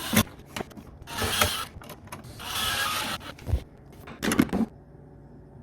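Hand work on a wall electrical outlet: a sharp click, two stretches of scraping and rustling, then a short cluster of knocks as parts are handled and fitted.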